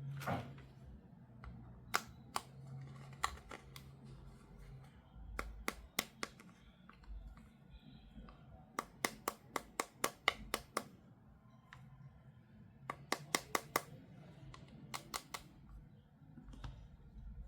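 Sharp clicks and snips from toy packaging being handled and opened. They come singly at first, then in quick runs of several clicks at a time.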